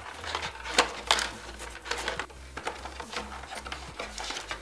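Cardboard box and clear plastic packaging tray being handled and pulled apart: an irregular run of scrapes, rustles and small clicks, with two sharper clicks around a second in.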